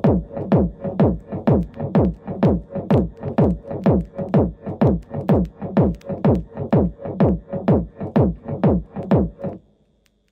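Electronic techno music with a steady beat of falling-pitch drum hits, about two a second, over a sustained tone; it stops abruptly near the end.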